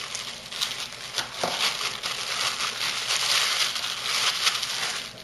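Crinkling and rustling of shopping bags and packaging being handled, with scattered small clicks and taps.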